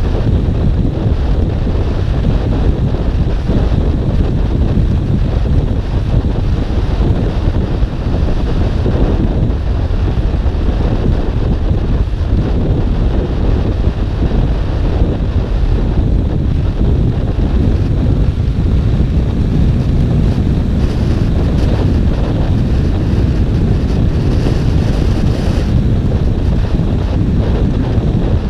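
Steady wind rushing over the camera microphone of a motorcycle being ridden at speed, the KTM 1290 Super Duke R's V-twin engine running underneath.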